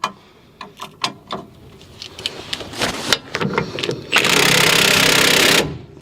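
Scattered metal clicks and knocks as a tool is fitted to the stabilizer link nut. About four seconds in, an impact wrench hammers hard and steadily for about a second and a half, then stops suddenly; the nut is too tight to come loose.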